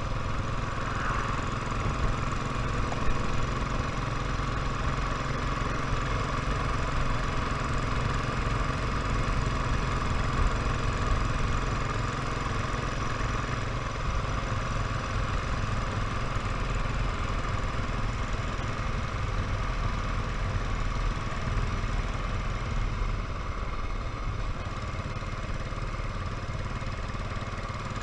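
Royal Enfield motorcycle engine running steadily under way, its note holding even throughout.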